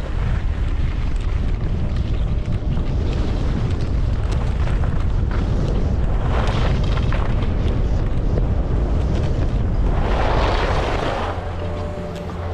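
Wind buffeting the microphone of a skier moving downhill, with the hiss of skis scraping across packed snow, loudest in two swells about six and ten seconds in. Near the end the wind drops away and a steady hum comes in.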